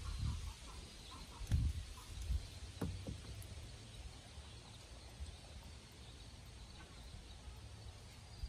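A hammer knocking a few times on a wooden window frame, dull and short, in the first three seconds, over a low steady outdoor rumble.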